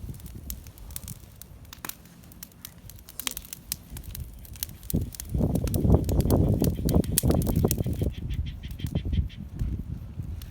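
Bonfire crackling, with sharp pops and snaps all through. A louder low rumble comes in from about five to eight seconds in.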